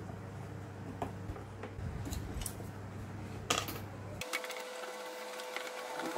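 Light clicks and taps of thin laser-cut wooden model pieces being handled and pressed into place on a wooden model house, a few sharper knocks about three and a half seconds in. A steady low hum underlies it and cuts out about four seconds in, leaving a faint steady higher tone.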